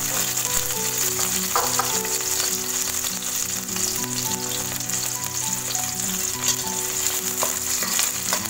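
Shallots and whole garlic cloves sizzling steadily in hot oil in a wok, fried straight in without being blended first. A few light knocks of the spatula against the pan come through, with soft background music underneath.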